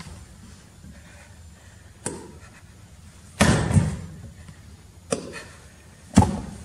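Four heavy thuds a second or so apart, the second and fourth the loudest and deepest: actors dropping one by one onto a wooden stage floor.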